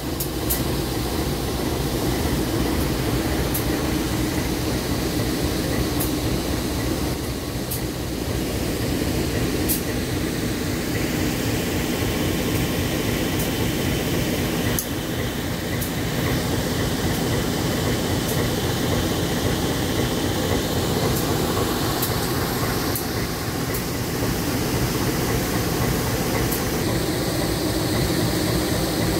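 CC203 diesel-electric locomotive idling while it waits to depart: a steady, deep engine rumble ("deru") with no change in pace.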